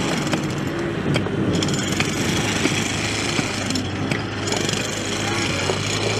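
Roadworks noise: an engine runs steadily, with a few sharp knocks scattered through it, as a pickaxe and shovels strike gravel.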